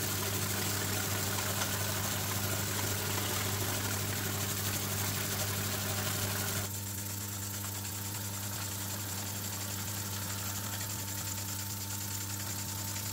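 Small oscillating engine running at speed, driving the wooden reduction gears and walking legs of a laser-cut strandbeest, with a steady hum and a fast mechanical clatter. About halfway through the sound drops a little and gets thinner.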